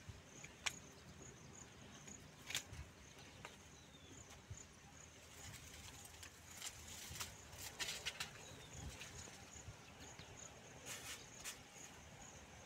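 Faint outdoor ambience: a thin high chirp repeating steadily about twice a second, with scattered light clicks and rustles.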